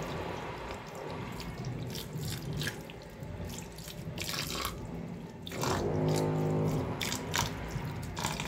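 Cold tap water running and splashing into a stainless-steel sink as chhena curds are rinsed by hand in a cloth-lined strainer, with irregular splashes as the curds are worked.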